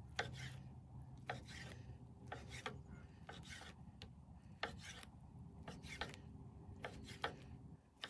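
A knife slicing through a rack of smoked St Louis-style pork ribs on a wooden cutting board: a faint, irregular run of short rasping cutting strokes.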